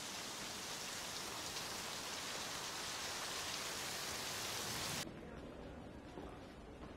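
Steady rain falling, an even hiss that cuts off suddenly about five seconds in, leaving only faint room tone.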